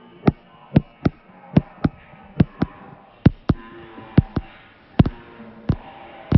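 A series of short, sharp taps, often in quick pairs, about two a second, over faint wavering tones.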